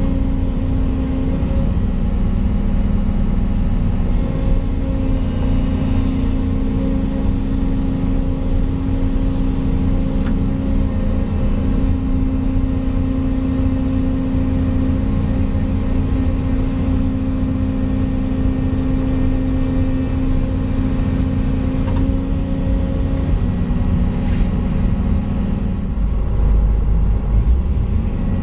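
Volvo EC220 excavator's diesel engine running steadily, heard from inside the cab as a constant low drone, with a deeper rumble swelling near the end.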